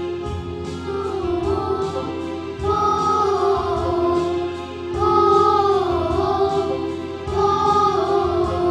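Group of children singing a Hindi devotional song over instrumental accompaniment with a steady beat.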